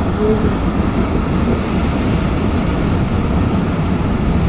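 Steady running noise of a moving passenger train, its wheels rumbling on the rails, heard from the side of the coach as it passes alongside a long standing container freight train.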